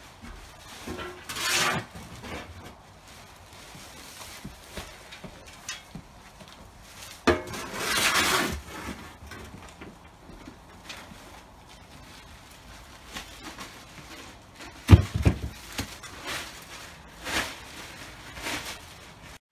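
Ceiling demolition debris, broken plaster and drywall, crashing and clattering in irregular bursts, with sharp knocks and one heavy thump about three-quarters of the way through.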